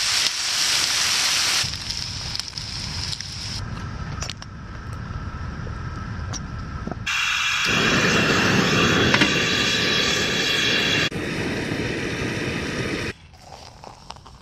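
Camp cooking in short cuts: bacon sizzling on a hotplate, then a gas burner running with a steady rush. The sound changes abruptly every few seconds.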